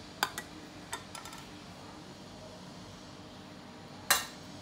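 Steel kitchen utensils clinking as ghee is strained: a steel mesh strainer and steel vessels tapping lightly, a few quick taps in the first second and a half, then one sharper clink about four seconds in.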